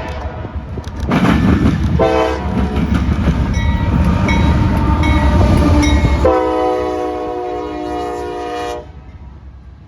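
CSX train's air horn sounding as the train passes at speed over the rumble and clatter of its wheels on the rails: a short blast about two seconds in, more horn under the train noise, then a long steady blast that cuts off near the end.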